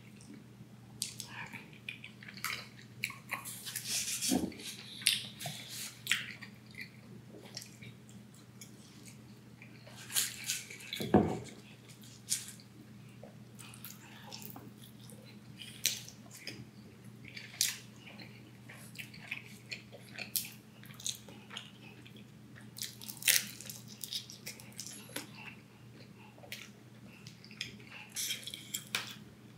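A person chewing and biting food up close, with irregular wet smacks and crunches of mouth sounds; one fuller, louder bite or gulp about eleven seconds in. A faint steady hum runs underneath.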